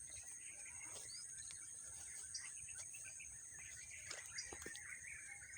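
Several birds chirping and calling in short, scattered notes over a steady, high-pitched insect drone; faint overall.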